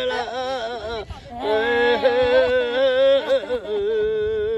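A single voice singing unaccompanied: long held notes with a wavering, ornamented pitch and a short break about a second in.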